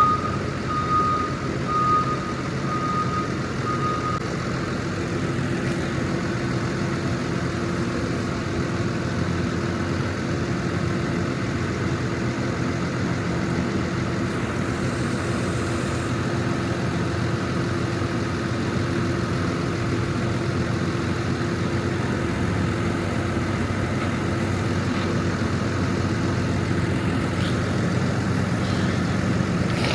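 Diesel engine of a farm loading shovel running steadily while it handles bags of fertiliser, with its reversing alarm beeping for the first few seconds.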